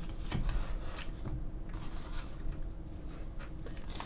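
Soft handling noises: scattered light taps, clicks and rubbing as an eggnog carton and cup are handled.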